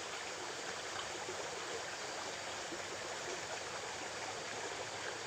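Small river flowing steadily, an even rush of running water.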